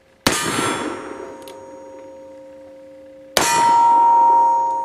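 Two shots from a .44 black-powder Remington New Model Army cap-and-ball revolver, about three seconds apart. Each is followed by a long metallic ring, like a struck steel target; the ring after the second shot is the louder.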